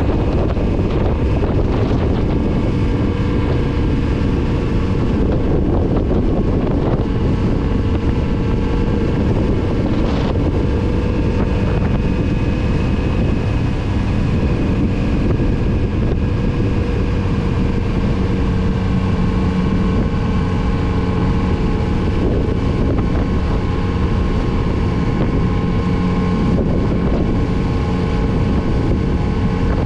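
Kawasaki Z900RS's inline-four engine running at a fairly steady speed under way, with wind buffeting the microphone.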